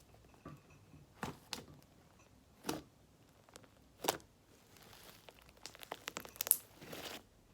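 Slime with fishbowl beads being squeezed and pressed by hand: scattered crunchy crackles and sharp clicks, with louder pops about a second in, near three and four seconds, and again past six seconds.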